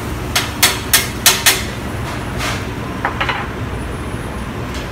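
A quick run of about five sharp clinks, a spoon knocking against a small dish and the pan as pesto is spread, then a few fainter clinks about three seconds in. Under it runs a steady low rumble.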